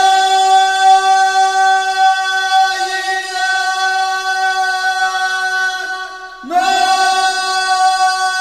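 Conch shell (shankh) blown in long steady blasts on one note. One blast fades out about six seconds in, and a new one starts half a second later, swooping up from below to the same note.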